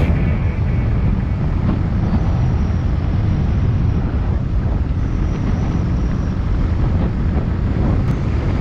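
Steady wind buffeting on the microphone of a camera carried on a moving motorcycle, a low rumble mixed with the bike's engine and tyre noise on the road.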